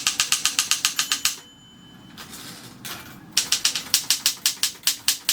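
Consul 224 portable typewriter being typed on: quick, even runs of keystrokes, the typebars snapping against the platen about six or seven times a second. The typing stops about a second and a half in and starts again after a pause of about two seconds.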